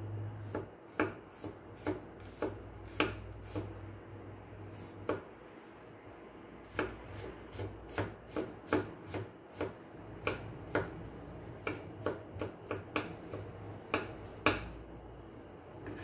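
Kitchen knife chopping on a cutting board: about thirty sharp, irregular taps in quick clusters, with a pause of a couple of seconds a third of the way in, over a low steady hum. This is the knife work of mincing ingredients very small.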